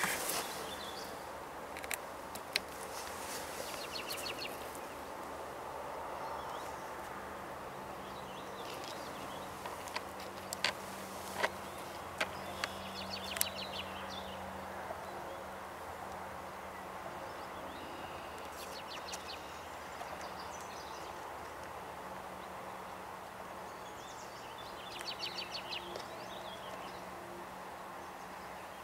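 Wild birds singing and calling at intervals, short trilled phrases coming and going, over a steady low hum, with a few sharp clicks in the first half.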